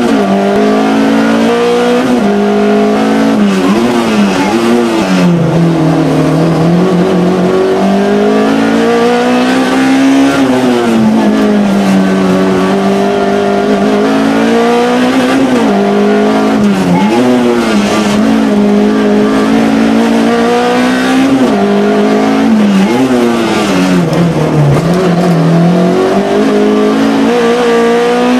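Peugeot 106 rally car's engine heard from inside the cabin, driven hard: the revs climb and drop over and over as it accelerates and slows, with several sharp dips and quick rises.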